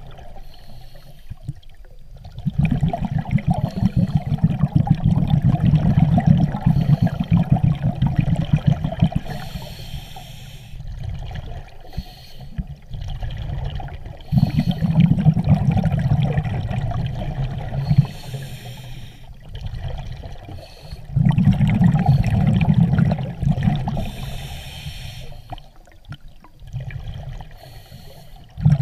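Scuba diver breathing through a regulator underwater: three long stretches of bubbling exhalation, each followed by a short hiss as the regulator delivers the next breath.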